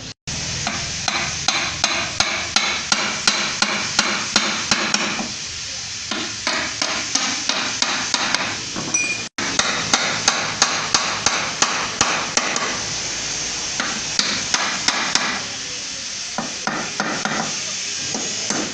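A hammer striking metal in a steady run of sharp blows, about three a second, with a couple of short pauses.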